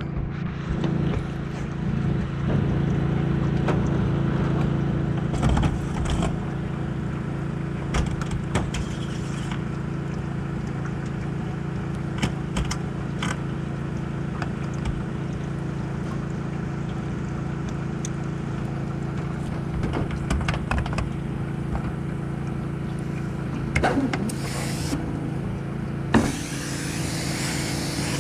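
Pressure washer running steadily at one pitch, with the hiss of its spray and scattered clicks and knocks. The hiss gets brighter near the end.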